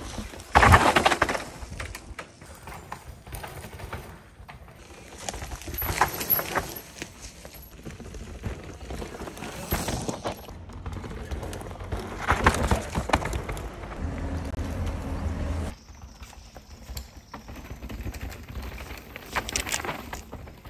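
Mountain bike riding fast down a dirt forest trail: uneven noise of tyres over dirt and roots, with knocks and rattles from the bike and a low rumble underneath. The sound changes abruptly about three-quarters of the way through.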